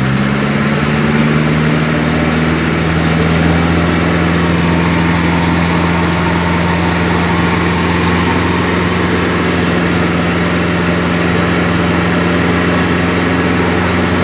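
A motor vehicle's engine idling loud and close, at a steady, unchanging pitch.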